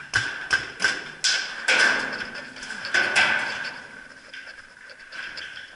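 Paintball gunfire: a quick run of sharp cracks, about seven in the first three and a half seconds, then fainter and more scattered.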